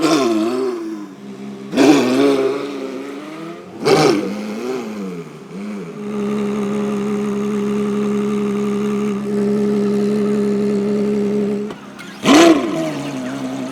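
Ferrari car engine revving in several short blips. About six seconds in it settles into a steady held drone, then cuts off with another sharp rev near the end.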